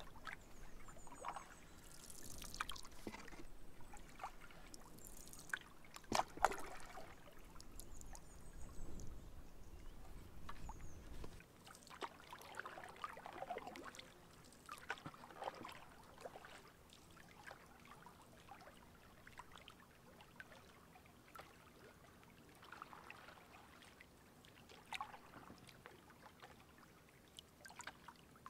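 Canoe paddle strokes in calm lake water: the blade dipping, with splashes and water trickling off it, in irregular strokes, busier in the first half. One sharp knock about six seconds in.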